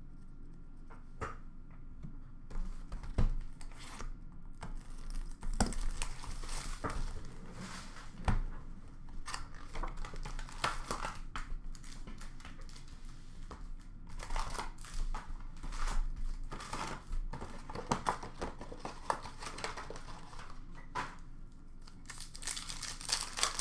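Hockey card pack wrappers being torn open and crinkled, with cards slid out and handled: irregular crinkling, tearing and small clicks that come and go in spells.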